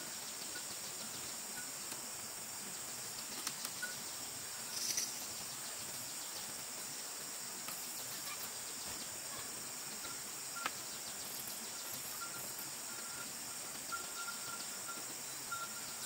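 Steady high-pitched drone of forest insects, with a few light knocks scattered through it.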